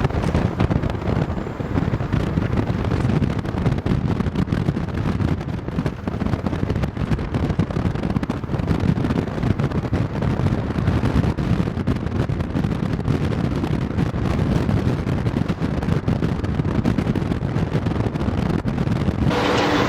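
Steady low rumble of wind buffeting the microphone over vehicle road noise. Just before the end a brighter noise with a faint steady hum comes in.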